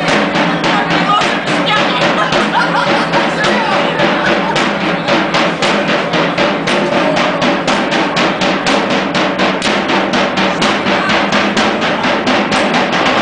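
A drum beaten in a steady, fast, even rhythm of about three beats a second, for a group dance.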